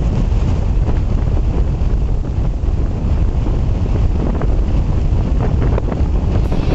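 Strong mountain gale buffeting the microphone: a loud, steady low rumble of wind.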